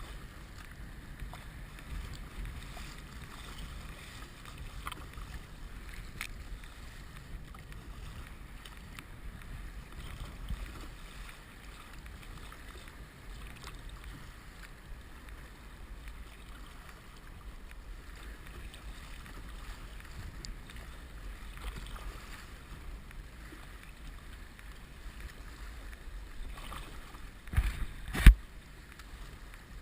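Muffled sea water and wind noise during kayaking, heard through a head-mounted GoPro HD Hero2's waterproof housing, with faint ticks along the way. Two sharp knocks come close together near the end.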